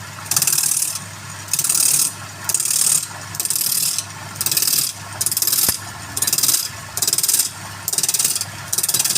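Wood being worked in regular abrasive strokes, about eleven scraping rasps a little more than one a second, each lasting about half a second. A steady low hum runs underneath, typical of a woodturning lathe's motor.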